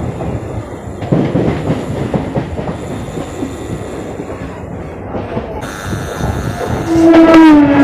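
Electric local train running at speed, its wheels rumbling and clattering over the track, heard from inside the coach by the open door. About seven seconds in, a loud train horn sounds, dropping slightly in pitch.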